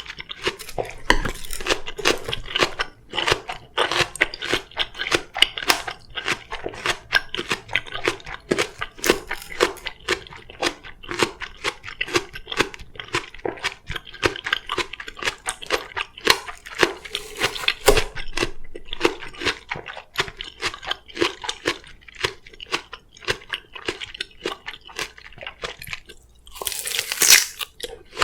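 Close-miked crunching and chewing of crisp Korean oriental melon (chamoe), many quick crunches in a row. Near the end there is a brief, louder rush of noise.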